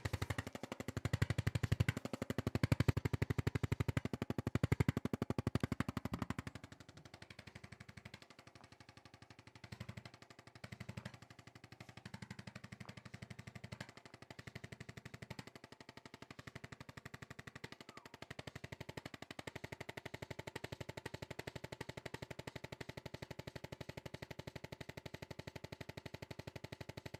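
Handheld percussion massager running in rapid, even pulses against the patient's body. It is louder and heavier for about the first six seconds, then continues more quietly.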